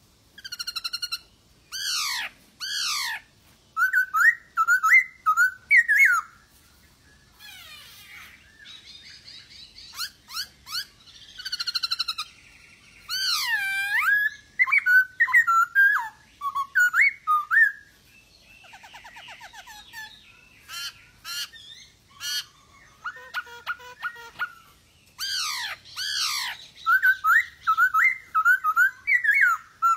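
Black-throated laughingthrush singing loudly: clear whistled notes that slide steeply downward, alternating with quick warbling runs, in repeated bursts with short pauses and a couple of harsher buzzy stretches.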